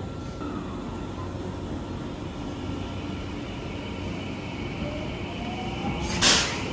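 JR West Haruka limited express train standing at a station platform: a steady rumble and hum with a faint rising whine, then a sudden loud hiss of compressed air about six seconds in.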